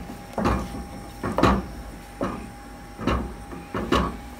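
Wooden spoon stirring thick cheese sauce in a stainless steel pot, knocking and scraping against the pot's side about once a second.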